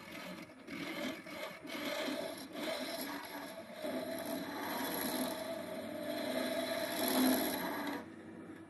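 Flat scraper cutting the inside of a stone pine vase spinning on a wood lathe: a rough scraping sound in short strokes at first, then continuous, with the lathe running underneath. The cutting stops shortly before the end, leaving the lathe's quieter hum.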